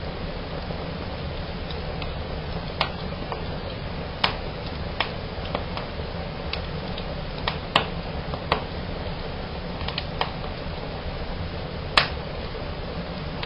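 Fire burning in a fireplace: a steady low rush of flames with irregular sharp snaps and pops, about ten of them, the loudest near the end.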